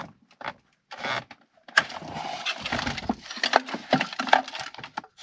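Hands working among dashboard wiring and plastic parts: a few sharp clicks in the first second, then from about two seconds in a dense stretch of rubbing, rustling and clicking.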